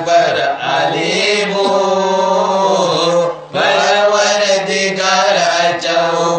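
Men singing a Manipuri marifat devotional song into a microphone in long, drawn-out melodic phrases, with a short breath pause about three and a half seconds in.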